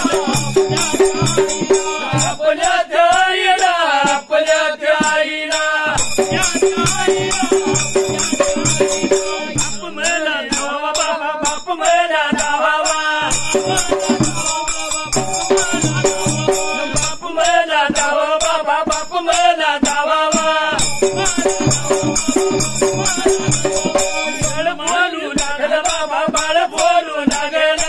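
Dhangari ovi being sung, with a big steel-shelled gaji dhol beating a steady rhythm and small hand cymbals (tal) jingling along with the beat.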